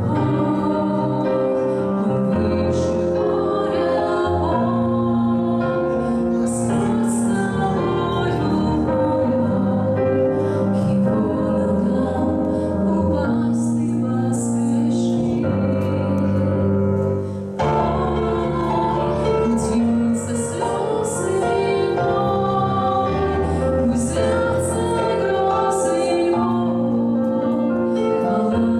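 A woman singing into a handheld microphone over an instrumental accompaniment, holding long notes.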